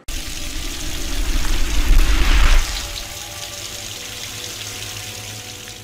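Sound effect of rushing, splashing water that starts abruptly, swells to its loudest a little after two seconds in, then settles into a softer steady wash with a few faint held tones underneath.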